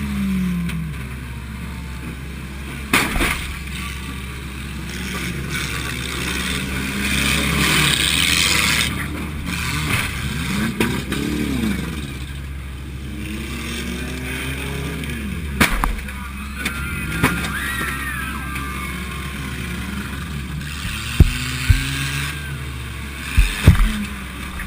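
A demolition-derby 1987 Honda Accord's four-cylinder engine revving up and down, with hard car-to-car crashes. Sharp bangs come about 3 s in and near 16 s, and several more come in quick succession near the end.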